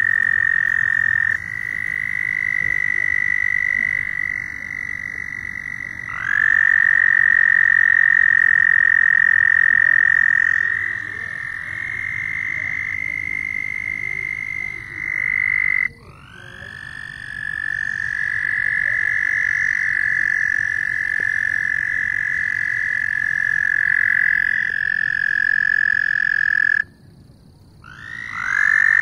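Several toads trilling: long, steady, high-pitched trills, each held for several seconds and overlapping at slightly different pitches. Near the end one trill stops and, after a brief lull, another begins.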